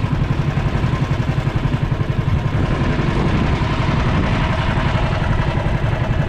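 Motorized outrigger boat (bangka) engine running steadily under way, with a fast, even low pulse.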